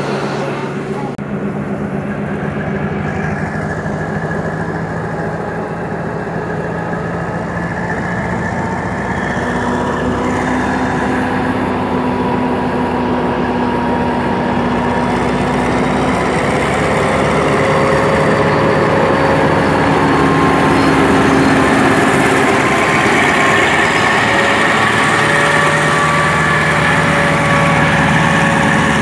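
Diesel train running, heard from inside a carriage: a steady engine hum with several held tones that shift in pitch over a constant rumble, growing a little louder from about halfway through.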